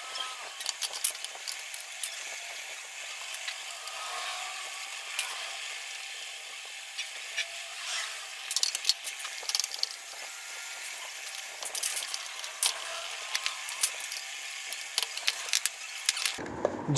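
Scattered light clicks and metallic clinks of hand tools and parts being handled while a motorcycle's front wheel and front fork legs are taken off, over a steady faint hiss.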